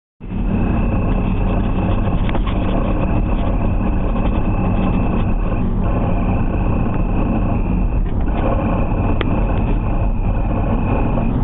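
1990 BMW E34 M5 driving, with steady engine and road noise and a thin, high-pitched chirping tone running over it that drops out briefly about six and eight seconds in. The owner takes the chirp for a failing bearing.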